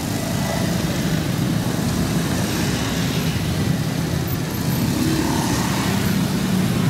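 Dense street traffic at close range: motorcycle and car engines running as they crawl past, a steady mix of engine sound and road noise.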